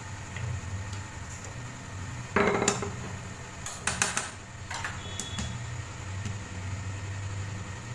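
Kitchen clatter on a countertop: a wooden rolling pin set down with a loud knock a little over two seconds in, then a few lighter clinks and taps of a metal spoon, over a low steady hum.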